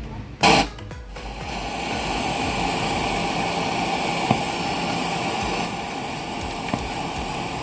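A loud, short burst of sound, then steady radio static hissing from the speaker. The hiss is the sound of an FM radio between stations.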